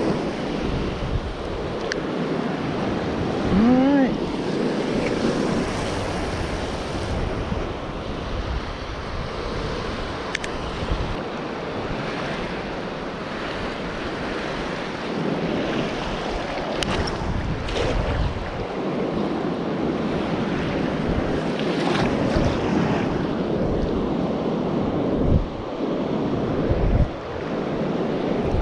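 Surf breaking and washing over the beach at the shoreline, with wind buffeting the microphone. A short rising call sounds about four seconds in, and a few brief knocks come later.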